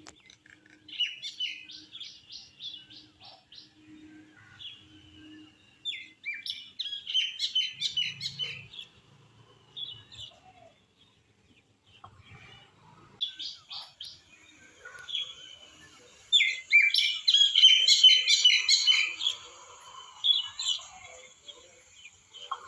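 Songbirds singing in bursts of rapid, high chirping trills: a short burst about a second in, a longer one around the middle, and the longest and loudest, about three seconds, near the end.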